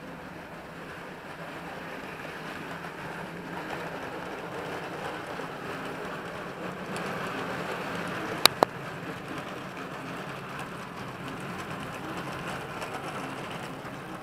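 Model train of BOC tank wagons rolling along the track, a steady whirring rattle of wheels on rail that grows louder as it passes close, then eases slightly. Two sharp clicks come in quick succession about eight and a half seconds in.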